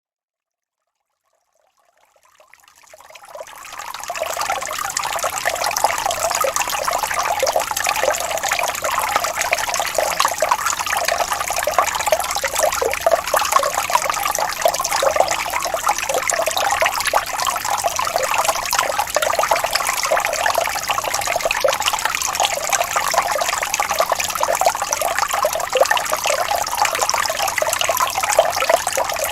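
Stream water running and rippling steadily over stones, fading in from silence over the first few seconds.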